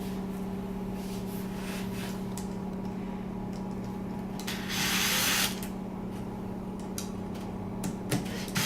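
Latch screws being tightened by hand with a Torx screwdriver on a door lock: a brief rasping rub about halfway through and another near the end, with a few light clicks, over a steady low hum.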